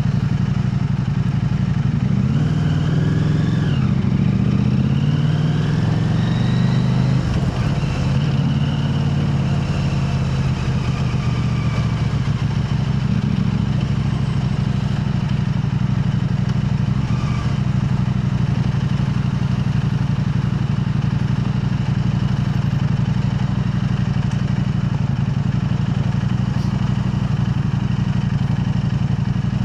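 KTM 890 Adventure R's parallel-twin engine through an Arrow Race-Tech aluminium exhaust, running while the bike is ridden. The pitch rises and falls a few times over the first several seconds, then settles into a steady drone.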